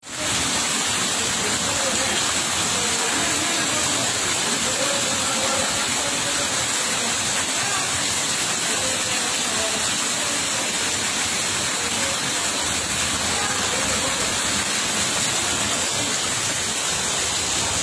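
Heavy rain falling steadily on flooded ground and running water, a constant hiss.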